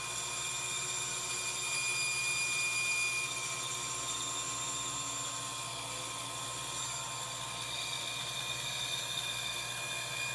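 Bandsaw running with its blade cutting a curve through thick laminated plywood: a steady whine over an even hum.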